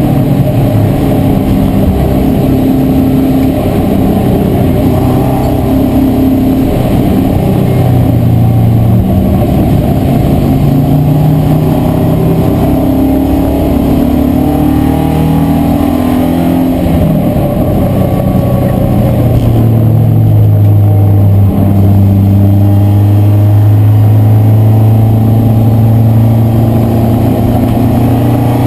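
BMW E36 318iS race car's four-cylinder engine, heard from inside the cabin, revving up and changing gear repeatedly under racing acceleration, then holding a steady pitch for the last several seconds.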